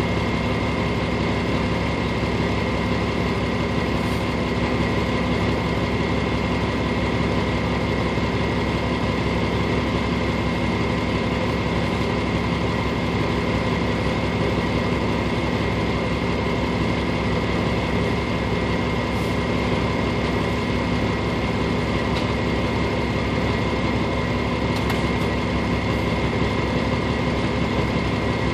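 Vehicle engine idling steadily, heard from inside the cab, with a constant high whine over the hum.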